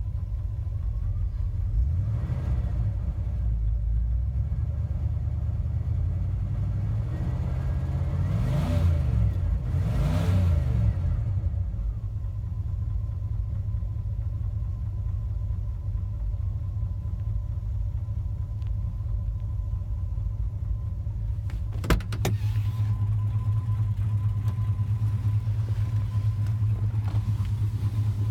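AMC 360 V8 of a 1991 Jeep Grand Wagoneer idling, briefly revved a few times in the first half, under an idle knock at half engine speed whose cause the owner has not yet found. A single sharp clunk comes about three quarters of the way through, after which the idle sounds steadier and a little louder.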